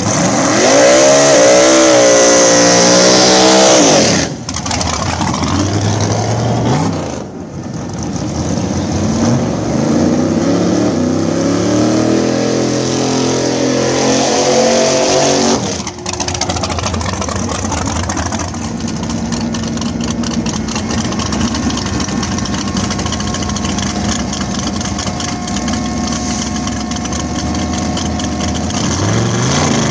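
Drag race car engines revving hard, their pitch climbing and falling over several separate stretches that break off suddenly about 4 and 16 seconds in. In the second half a loud engine runs more steadily, holding roughly the same pitch.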